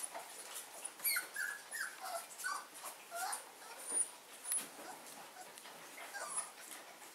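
Bearded Collie puppies whimpering: a run of short, high, falling squeaky cries about a second in, then a few more near the end.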